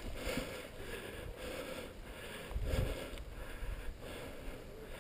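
Soft footsteps in grass and ferns with rustling of clothing and gear, and a muffled bump a little before the middle.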